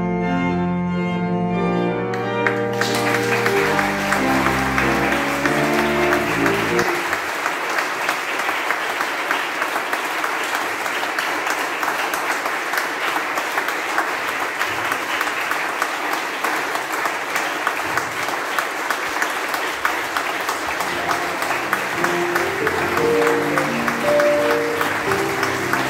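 Congregation applauding steadily. An organ plays over the first part and stops about seven seconds in, and music starts again near the end.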